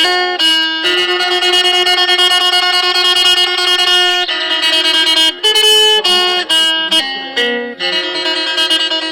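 Isan phin (plucked lute) playing a melody over a steady low drone note. The notes are picked rapidly and held from about a second in, break into shorter changing notes mid-way, and settle into held notes again near the end.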